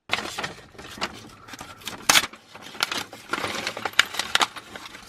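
Irregular metallic clicking and clinking of hand tools working a fastener on a car's gear shifter assembly.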